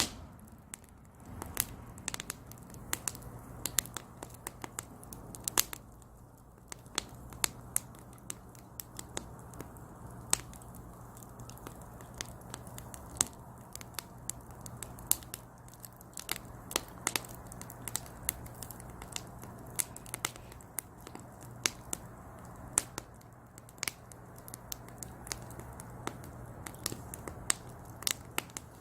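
Wood logs burning in a small brazier, crackling and popping with irregular sharp snaps several times a second over a soft low rush of flame, with a faint steady hum underneath.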